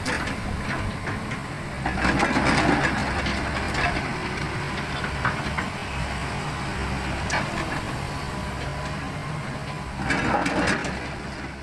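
Volvo EW145B wheeled excavator's Volvo D6D diesel running steadily under hydraulic load while the bucket digs and scrapes through gravel and rock. Louder grinding and crunching of stones comes about two seconds in and again near the end, with scattered clacks of rock in between.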